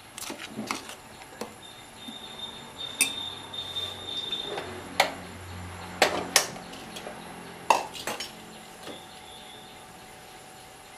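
Steel spoon clinking against a stainless steel pot as the pot is moved and set down on a gas stove, with a few sharp clicks of a hand-held spark lighter lighting the burner.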